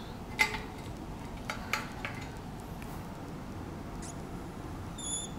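Dry-erase marker on a whiteboard: a few sharp taps and knocks in the first two seconds, the first the loudest, then a short high squeak about five seconds in.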